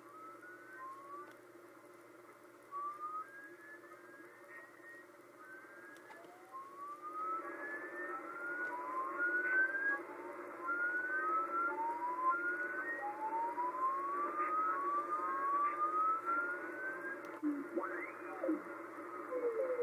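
Shortwave receiver audio on 4631 kHz: odd whistling pings, many short tones each gliding upward in pitch, often several overlapping, over the receiver's hiss and a steady hum. They grow louder and more frequent about a third of the way in, and a few steeper sweeps, some falling, come near the end.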